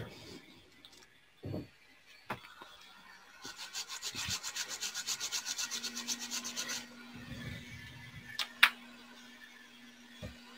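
Rapid back-and-forth scrubbing on a laptop motherboard, about ten strokes a second for some three seconds, cleaning off the paste residue left around a freshly soldered resistor. A few faint clicks come before and after, and a low steady hum starts about halfway through.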